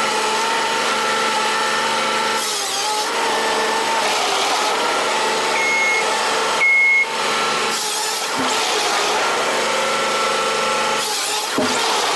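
Forestry harvester at work: a steady engine and hydraulic drone while the harvester head feeds and saws logs, broken by a few abrupt breaks.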